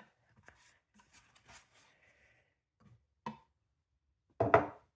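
Faint rustling and small taps of a cardboard candle box being handled and opened, with a sharper tick about three seconds in and a louder short knock near the end.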